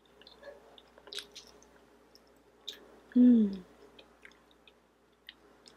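Close-up mouth sounds of someone chewing soft, sticky green tea mochi ice cream: scattered wet smacks and clicks. About three seconds in comes a short hum that falls in pitch, the loudest sound.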